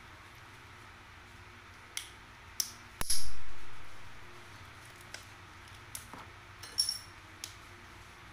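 Small clicks and crinkles of plastic jelly cups and a plastic wrapper being handled and peeled. One loud knock comes about three seconds in and fades slowly.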